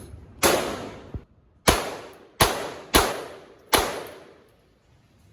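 Gunshots: five loud shots in an uneven string over about three seconds, each with a short echoing tail, plus a fainter crack just after the first.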